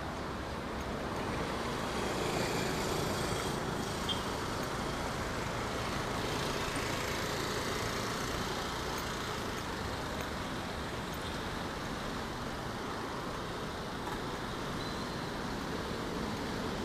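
Street traffic noise: cars and motorcycles passing on a multi-lane city road, a steady din that swells slightly about two to four seconds in.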